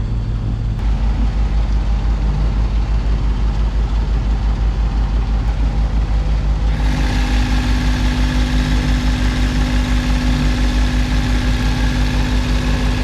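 Sailboat's inboard engine running steadily under way, with an even low pulse. About halfway through, a higher hiss and a steady hum join in.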